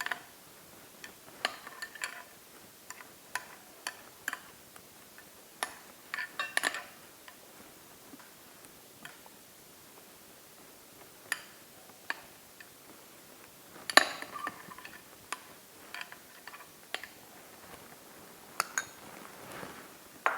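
Dishes and kitchen utensils clinking and knocking in scattered sharp taps, a couple of dozen in all, some with a short ring, the loudest about 14 seconds in, as a hot steamed onion is lifted out of its bowl.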